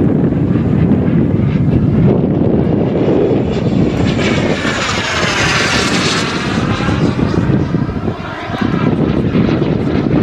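Whine of a KingTech K-45G2 kerosene turbine on a Mini Avanti S RC jet. It swells to its loudest about five seconds in as the model passes overhead, then fades. Wind rumbles on the microphone all along.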